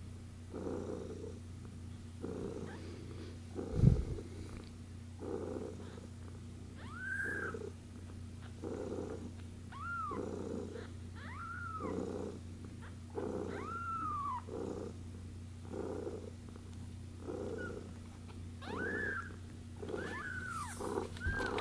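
A cat purring in slow, even cycles about every second and a half, while a one-week-old kitten cheeps: short high calls that rise and fall, repeated from about seven seconds in. A single low thump about four seconds in.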